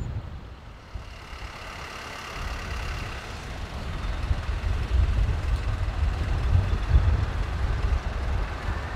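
Boeing 767-300 freighter's jet engines on final approach, a deep rumble growing steadily louder as the aircraft comes in to land. A faint high whine fades out about three seconds in.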